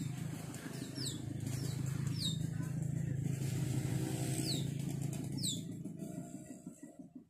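Birds chirping: a handful of quick, high calls that drop sharply in pitch, over a steady low hum.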